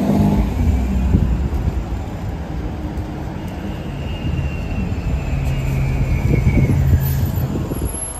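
A 2007 Orion VII hybrid-electric transit bus pulling in to a stop: a steady low rumble, with the electric drive's whine falling in pitch as the bus slows, from about three and a half to seven seconds in.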